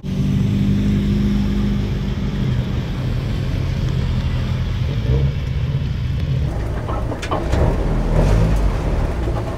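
Mazda Roadster (MX-5) four-cylinder engine running close by, holding fairly steady with small shifts in pitch.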